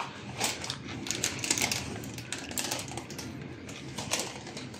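Potato chips in a mayonnaise salad crunching and crackling in quick, irregular clicks.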